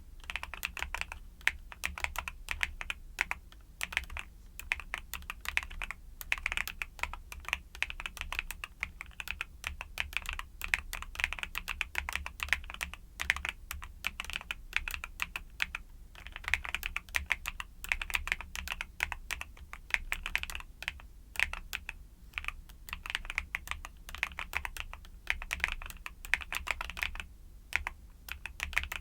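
Continuous typing on a YUNZII mechanical keyboard with Cocoa Cream switches: quick, dense keystrokes with short pauses every few seconds.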